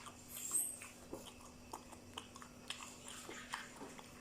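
A person chewing and biting a mouthful of spicy seafood salad, with irregular small wet clicks and snaps, over a faint steady electrical hum.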